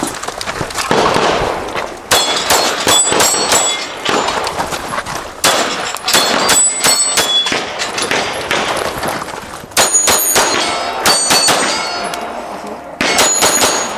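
Pistol shots fired in quick strings, with steel targets ringing after hits. There are four bursts of rapid shots with short pauses between them.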